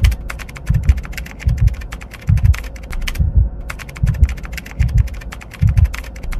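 Rapid keyboard-typing clicks, a sound effect for on-screen text being typed out, over a deep paired thump that repeats about every 0.8 s. The clicks pause briefly about three seconds in.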